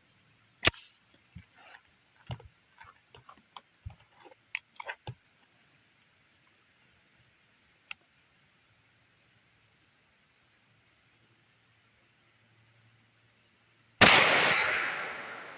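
A single shot from a CZ52 pistol firing 7.62x25 full metal jacket ammunition near the end, a sharp report that rings out for over a second. Before it, a sharp click about a second in and a few light clicks over the next few seconds, with a steady high cricket buzz throughout.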